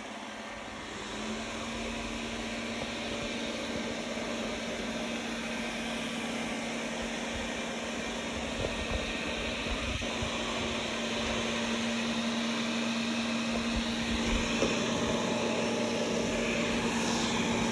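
Robot vacuum cleaner running across a hard floor: a steady whir from its suction fan and brushes, with a steady low hum that joins about a second in.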